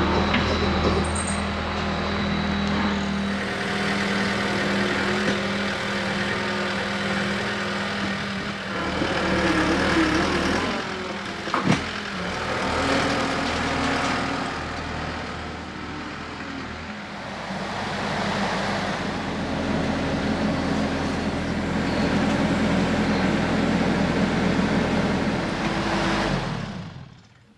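Diesel engines of a John Deere compact track loader and a Bobcat mini excavator running and working, the engine note shifting several times. One sharp knock a little before halfway. The machine sound drops away abruptly just before the end.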